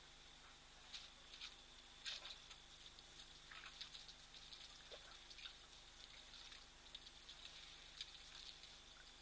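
Near silence with faint, scattered drips and small splashes of water as elephants drink in a shallow waterhole, over a steady faint high-pitched tone.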